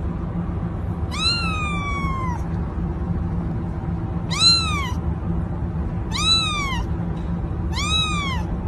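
Domestic cat meowing four times. The first meow, about a second in, is longer and falls in pitch; three shorter meows follow, each rising and falling, spaced about a second and a half apart. A steady low hum runs underneath.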